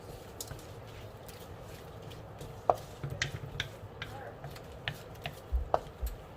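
A cooking utensil knocking and scraping against a pan as shrimp in butter are stirred: a handful of sharp, irregular taps.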